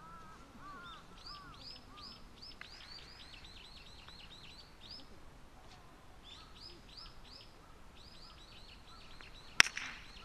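Small birds chirping in quick runs of short, high, arched notes. About nine and a half seconds in comes a single sharp crack: a park golf club striking the ball.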